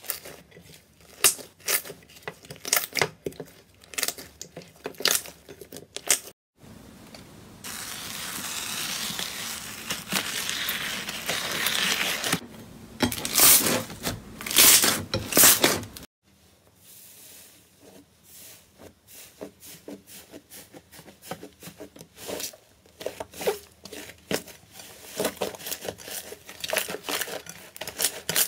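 Slime being kneaded, squeezed and stretched by hand, with sticky crackling pops and tearing sounds. In the middle stretch there is a steady hiss under a few louder pops.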